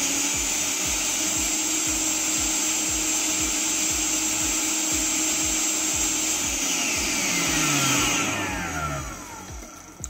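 Oster Xpert blender motor running at a steady speed on speed 2. It runs at the same speed as on speed 1 because the speed sensor is disconnected and the board cannot sense the motor's revolutions. About six and a half seconds in, the whine starts to fall in pitch and fades as the motor winds down.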